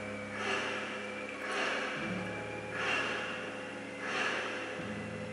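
A person breathing close to the microphone: four soft, noisy breaths, evenly spaced about a second and a quarter apart.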